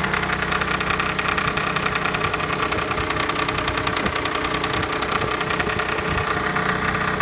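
BMW 320d E90's 184 hp two-litre four-cylinder diesel (N47) running, with a fast, even ticking over the steady engine sound. The owner cannot place the noise, which persists even after a new timing chain.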